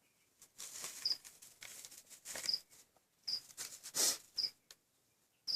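Plastic bag rustling and crinkling in bursts as a snake is worked out of it, loudest about four seconds in. A cricket chirps briefly about once a second throughout.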